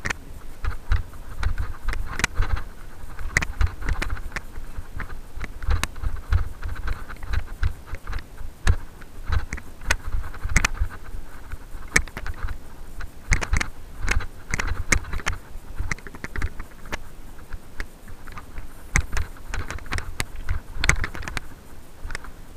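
A mountain bike clattering and rattling over a rough dirt trail, with frequent sharp knocks and jolts from the bike and the camera on it, over a low rumble of wind and handling noise.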